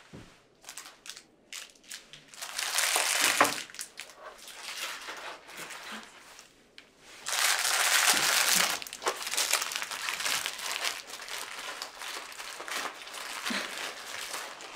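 Plastic-wrapped sweets crinkling and rustling as a hand scoops them from a bowl, in a short burst a couple of seconds in and a longer one about halfway through, with lighter rustling between.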